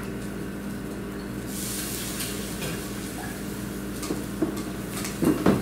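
Kitchen work sounds: a utensil stirring and clinking in a bowl over a steady sizzle of food frying, with scattered clicks and a louder knock near the end.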